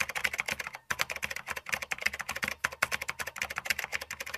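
Typing sound effect: rapid keyboard key clicks in quick runs broken by brief pauses, laid under on-screen text being typed out.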